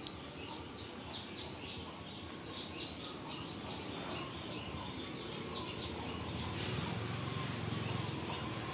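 Birds chirping: short high chirps repeated two or three times a second. A low rumble builds near the end.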